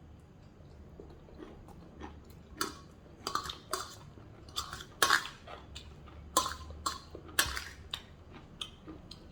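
Someone eating a plate of chicken noodles: a dozen or so irregular short clinks and scrapes of cutlery on the plate, with chewing, starting about two seconds in.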